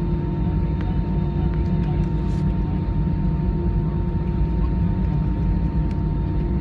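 Cabin noise of an Airbus A320 taxiing after landing: a steady low rumble from the jet engines at idle, with a faint steady whine on top, heard from inside the cabin.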